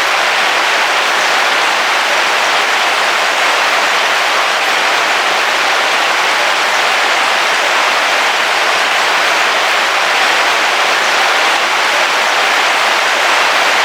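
Heavy rain drumming steadily on a car roof, heard from inside the car.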